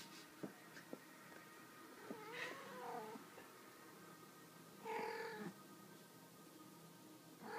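Cat meowing twice during rough play-wrestling: a call about two seconds in that bends down in pitch, then a shorter steady one about five seconds in, with a few faint soft taps in between.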